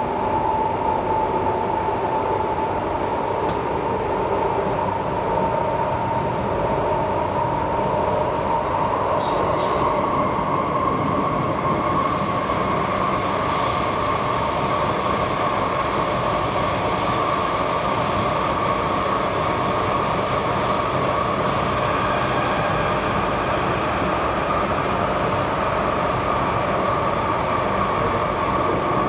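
An SMRT C751B metro train running, heard from inside the carriage: steady rolling noise with a high whine that rises slightly in pitch over the first ten seconds or so, then holds steady.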